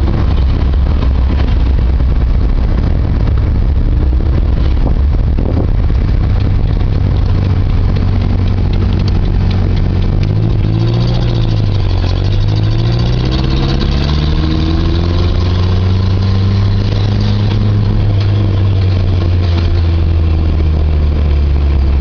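1981 Toyota Tercel's four-cylinder engine and exhaust running loudly while driving, with a steady low drone. About halfway through, the engine note drops and then climbs again as the car slows and picks back up.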